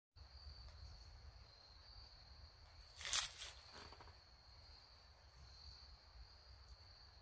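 Quiet woodland ambience: a low steady rumble and a thin steady high hum, broken by one short rustle about three seconds in.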